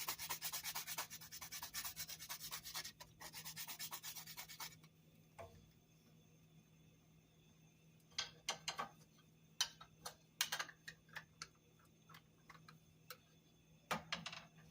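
Whole nutmeg being grated, fast scratchy rasping strokes that stop about five seconds in. Afterwards a few short light clicks and taps.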